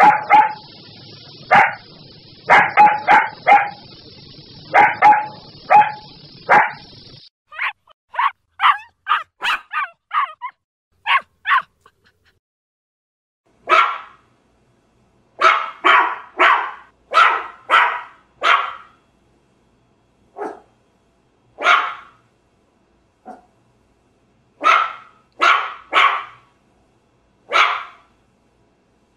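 Puppies barking in short high yaps, from several recordings joined one after another. For the first seven seconds the barks sit over a steady background hiss. Quicker, fainter yaps follow, then a pause of about two seconds. From about fourteen seconds on come single barks with a few quick runs of three or four.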